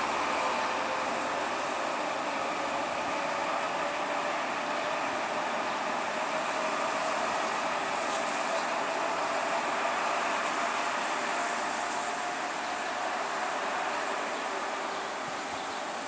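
Harzkamel metre-gauge diesel locomotive (a rebuilt V100) running as it moves along the track: a steady engine drone with a whine that rises slowly in pitch through the middle, easing off a little near the end.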